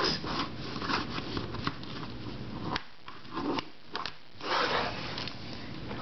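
A plastic pyramid twisty puzzle being handled: light plastic clicks and rubbing, with a few sharper clicks near the middle.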